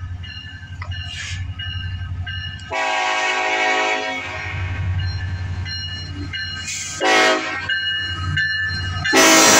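Norfolk Southern locomotive 1158's air horn sounding a chord of several notes in two blasts, a longer one about three seconds in and a shorter one about seven seconds in, over the low rumble of the approaching diesel locomotive. A loud burst of noise starts near the end as the locomotive comes alongside.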